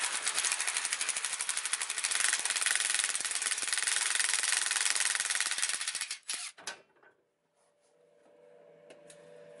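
DeWalt 20V cordless impact wrench hammering steadily on a track bar bolt, breaking it loose. It stops abruptly about six seconds in, followed by a few clicks.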